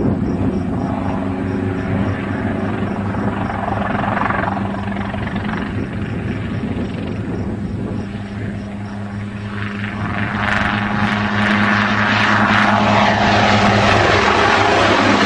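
Light helicopter flying low, its engine and rotor running with a steady drone; the sound grows louder and fuller about two-thirds of the way through as it comes close overhead.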